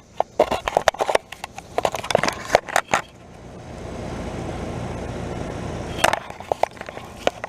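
Irregular crunching and crackling footsteps through dry leaves. About three seconds in, the steady rushing of a running Trane outdoor air-conditioner unit swells up and holds for about three seconds, then the crunching resumes.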